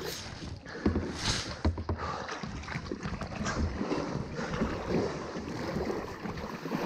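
Kayak paddle strokes in slow river water: irregular splashes and drips from the blades, with a few light knocks. Wind rumbles on the camera microphone underneath.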